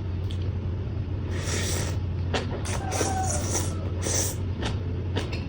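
Close-up chewing and crunching of papaya salad and fresh vegetables, in short noisy bursts with a few clicks, over a steady low hum.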